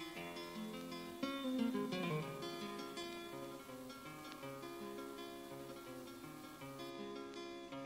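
Acoustic guitar playing a quick plucked melody over strummed chords, louder for a moment about a second and a half in.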